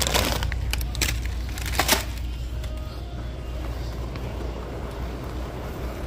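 Handheld phone being moved while filming: a few sharp rustles and clicks in the first two seconds over a steady low rumble, typical of handling and walking noise on a phone microphone.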